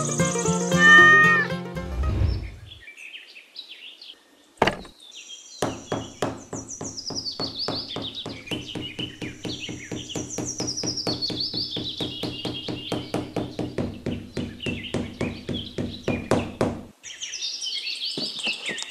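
Background instrumental music, loudest in the first two seconds, then a steady plucked beat with high chirping lines over it. A single sharp knock sounds about four and a half seconds in.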